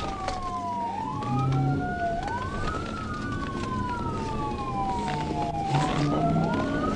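Police car siren wailing, its pitch rising quickly and then falling slowly, about once every three seconds, with two overlapping wails.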